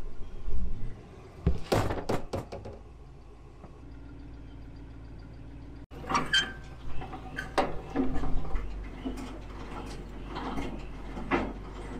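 Metal clanks and knocks of gooseneck trailer hardware being handled, in a quick cluster about two seconds in and a run of them through the second half, over a low steady rumble.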